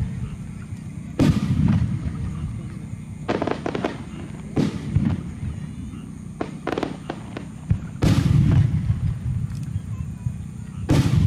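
Aerial fireworks shells bursting: about five deep booms a few seconds apart, each trailing into a low rumble, with quick clusters of sharp cracks between them.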